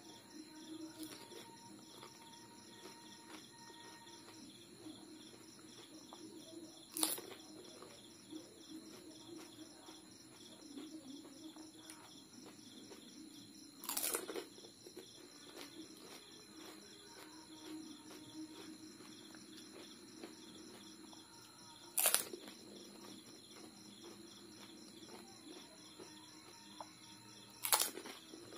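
Crisp pani puri shells crunching in the mouth as they are bitten, four loud crunches several seconds apart. Insects chirp steadily behind them.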